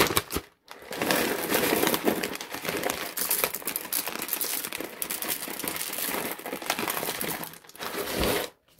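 Small translucent pebbles pouring out of a crinkling plastic bag and clattering into a small figurine pot: a dense run of tiny clicks and rustles lasting several seconds, with a few separate clicks just before it.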